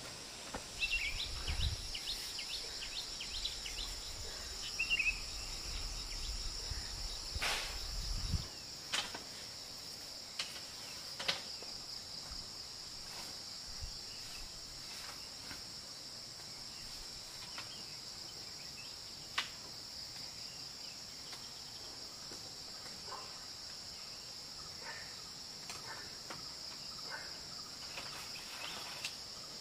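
A steady high-pitched insect drone, with a few bird chirps in the first seconds and a low rumble for the first eight. Scattered sharp knocks and taps from bamboo being handled and split, the loudest about seven and a half, eleven and nineteen seconds in.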